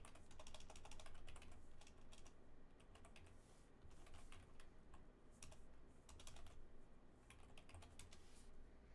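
Faint typing on a computer keyboard: quick runs of key clicks with short pauses between them.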